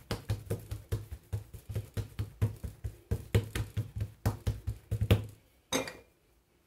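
Hands patting and pressing a ball of brioche dough flat on a countertop: quick dull thumps, about five a second, stopping about five seconds in. One brief, sharper sound follows near the end.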